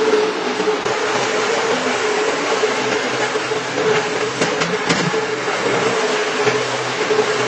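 Rotary carpet-scrubbing machine running steadily: a constant motor hum over the swish of its brush churning foamy shampoo into the carpet, with a few faint clicks.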